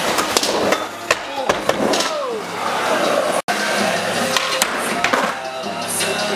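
Skateboard wheels rolling on a concrete floor, with several sharp knocks and clacks of the board in the first couple of seconds. The sound drops out for an instant a little past halfway.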